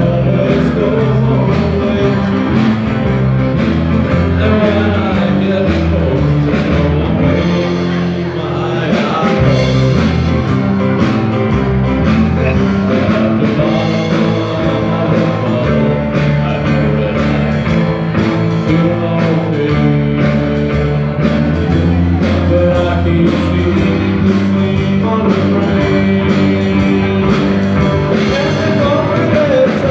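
Live band playing rock'n'roll with a singer, guitar and drums keeping a steady beat.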